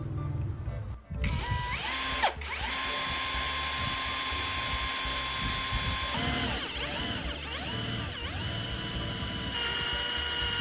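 Electric power tool motor spinning up about a second in and running at a steady pitch. From about six seconds it turns louder and shriller, its pitch dipping repeatedly as if under load.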